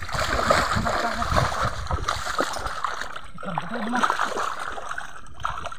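Shallow muddy swamp water splashing and sloshing irregularly as a person wades through it and gropes in the mud with his hands, feeling for fish.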